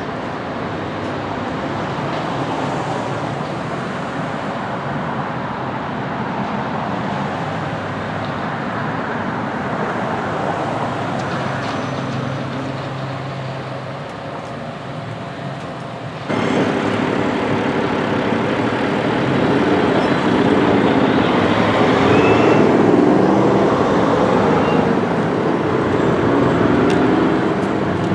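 Small John Deere wheel loader's diesel engine running under work. About two-thirds of the way through it abruptly gets louder, and its pitch rises and falls as it revs.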